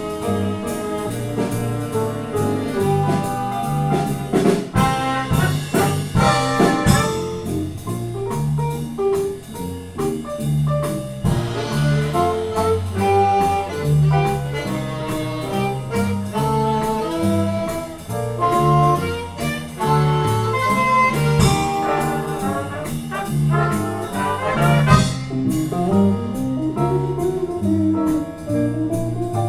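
Live jazz band playing an instrumental break: a horn carries the melody over a stepping bass line and drums.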